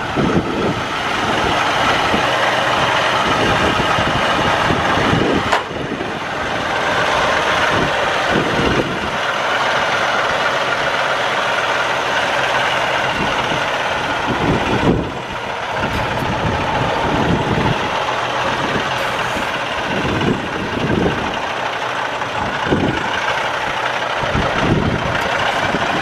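Strong wind buffeting the microphone in gusts, over a Kenworth semi-truck's diesel engine running as the tractor backs toward a trailer to hook up.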